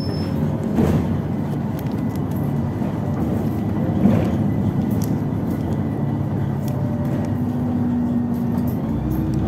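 LiAZ 6213.65 articulated city bus under way, heard from inside the passenger cabin: a steady low engine and driveline hum, with a faint thin high whine over it.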